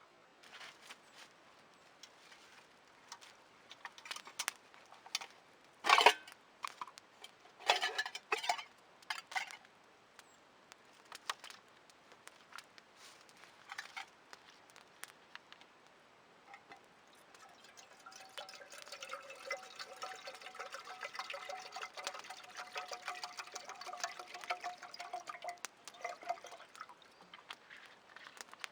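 Water poured or running for about ten seconds in the second half, after scattered clicks and knocks, the loudest a single knock about six seconds in.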